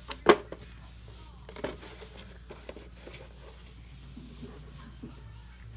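A cardboard toy box being handled: a sharp knock just after the start, a smaller one about a second and a half later, and light scratching and rustling between.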